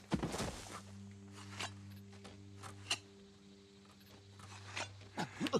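A low steady hum with a few higher sustained tones that come and go, under scattered soft clicks and rustles.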